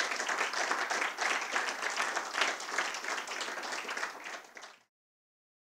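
Audience applauding, many hands clapping in a dense, even patter; the applause cuts off suddenly near the end.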